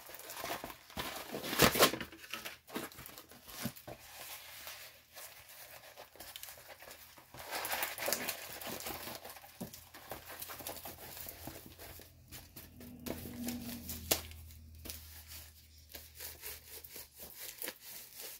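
A stiff, plastic-coated diamond-painting canvas being unfolded and handled, crinkling and crackling in irregular bursts, loudest about two seconds in.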